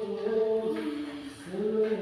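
Vocal music: a chant-like sung melody with long held notes that slide from one pitch to the next.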